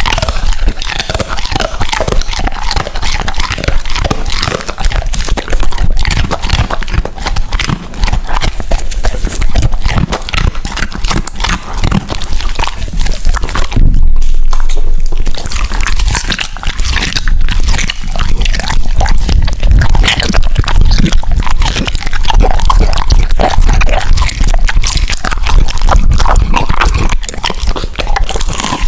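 Akita dog eating from a platter of meat and treats close to a microphone: loud, continuous chewing and crunching.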